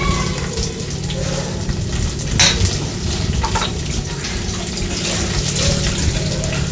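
Pieces of raw jackfruit sizzling as they fry in hot oil, a steady hiss, with a single knock about two and a half seconds in.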